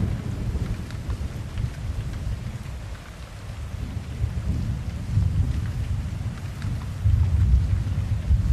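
Rain falling with a dense patter over rolling thunder. The low rumble eases about a third of the way in, then swells again about halfway through and once more near the end.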